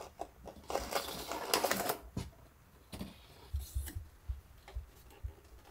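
Cardboard boxes rustling and scraping as they are pushed aside and a wooden box is slid and lifted out of them, with small knocks. The rustling is loudest a second or two in, and a few low thumps follow near the end.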